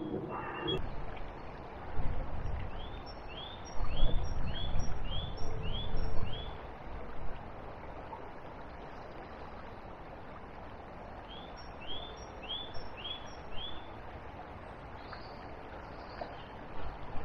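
A small songbird singing a repeated two-note phrase, about two a second in runs of five to seven, over steady riverside ambience. Bursts of low rumbling noise around two seconds in and again from about four to six seconds in are louder than the song.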